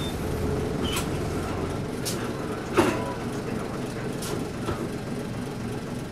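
Nissan Diesel P-U33L city bus heard from inside the cabin as it comes to a stop, its diesel engine idling steadily in neutral. A sharp clack about three seconds in stands out, with lighter clicks around it.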